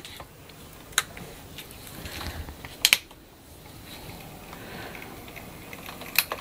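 OO gauge Hornby Large Prairie model locomotive running slowly along the track with a low motor whir. Sharp clicks come about a second in, twice close together near three seconds, and once more near the end.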